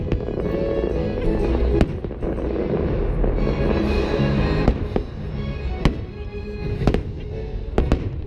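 Fireworks shells bursting with sharp bangs, about seven of them, irregularly spaced, two in quick succession near the end, over show music playing through loudspeakers.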